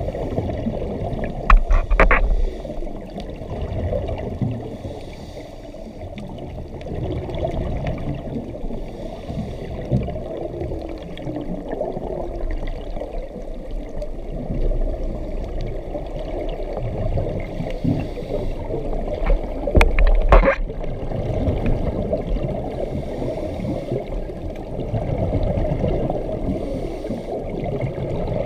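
Muffled underwater noise heard through an action-camera housing, with the gurgle of scuba regulator exhaust bubbles. Two louder, sharper bursts come about two seconds in and again near twenty seconds.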